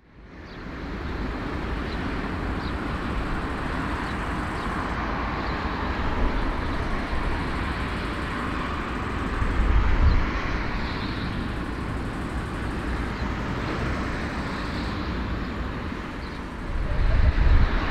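Jet engine noise from a four-engine Airbus A340-300 taxiing: a steady rushing drone over a low rumble. It fades in at the start, rises briefly around the middle and swells near the end.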